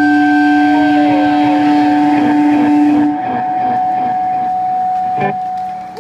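Electric guitars ringing out in sustained feedback tones through the amplifiers as a rock song ends. The lowest tone cuts off about halfway and the sound drops, a short knock comes near the end, and the last high tone stops at the close.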